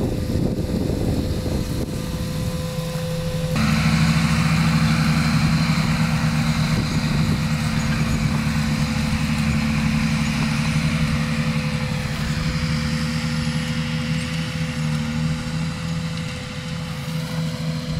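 John Deere 8320R tractor's six-cylinder diesel engine running steadily under load while pulling a planter, a continuous drone. The sound jumps abruptly to a louder, steadier drone a few seconds in.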